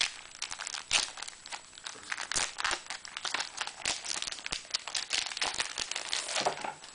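Plastic wrapping of an Apple iPad case crinkling as it is handled and pulled open by hand: a dense, uneven run of sharp crackles.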